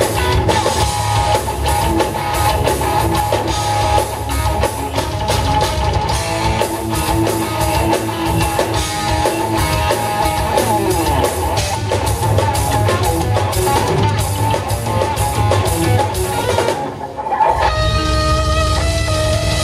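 Live instrumental rock music: electric guitar over a drum kit. The band drops out briefly about three-quarters of the way through, then comes back in.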